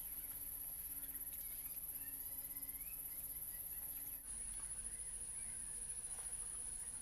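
Outdoor ambience: insects, cricket-like, keep up a steady high-pitched trill that drops a little in pitch about four seconds in, while birds chirp faintly now and then.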